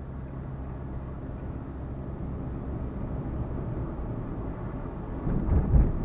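Vehicle engine running steadily with road noise while driving, with a louder low rumble for about a second near the end.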